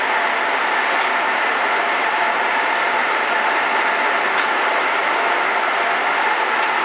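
Circular looms weaving woven-bag fabric, several running at once: a steady, dense mechanical whir with a few faint ticks.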